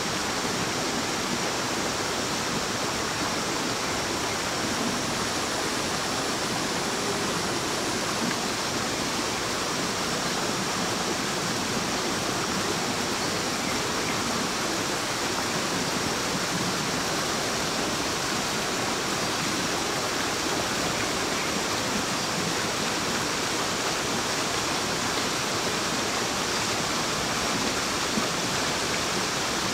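Small waterfall pouring steadily into a rocky pool, a constant rush of water.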